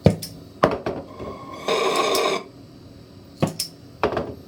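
Sharp clicks and knocks of metal tools being handled on a soldering bench, with a short loud burst of hiss a little under two seconds in.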